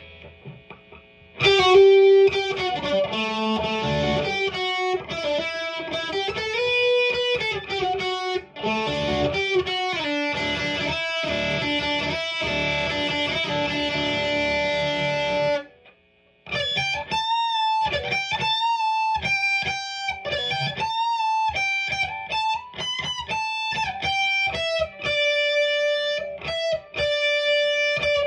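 Distorted electric guitar playing single-note lead lines: a Fender Telecaster's Lindy Fralin High Output bridge pickup through the ultra gain channel of a Marshall DSL-1 amp. Faint amp noise comes first; the playing starts about a second and a half in, stops briefly a little past halfway, then carries on.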